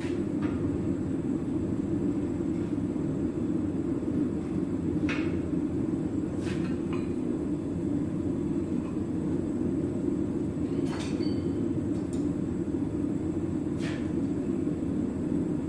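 Steady low roar of running forge-shop equipment, with half a dozen light, scattered metallic clinks as hot steel bars are handled.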